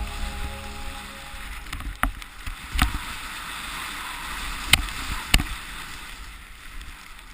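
Steady rushing noise of wind and snow on an action camera's microphone, with a few sharp knocks, as the last of the background music fades out in the first second and a half.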